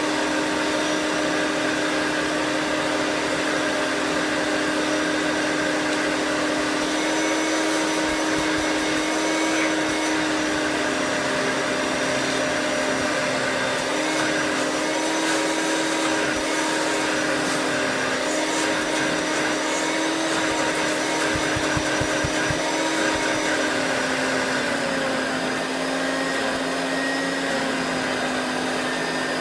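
Hoover Turbo Power Autoflex upright vacuum cleaner running steadily on high speed. Its motor whine wavers slightly in pitch and drops a little near the end. There are a few low knocks a little past the middle.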